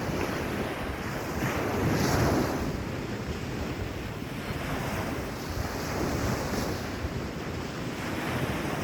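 Small sea waves washing onto a sand beach, rising and falling in slow surges, the biggest about two seconds in, with wind buffeting the microphone.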